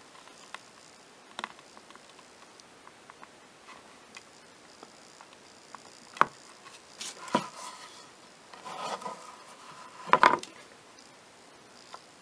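Fingers handling and pressing thin metal clock hands onto the movement's shaft against the clock face: scattered small clicks and taps, then a few brief rubbing scrapes from about seven to ten and a half seconds in, the loudest near ten seconds.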